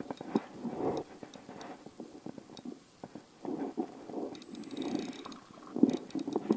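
River water lapping close to the microphone in irregular surges, with a few small clicks.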